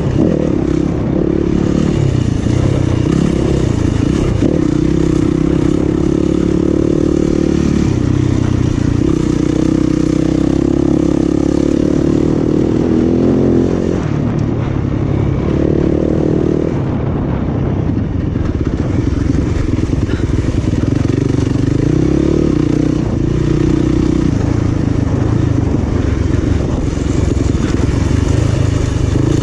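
Yamaha 250 single-cylinder off-road dirt bike engine under hard riding, its pitch rising and falling again and again as the throttle is opened and closed.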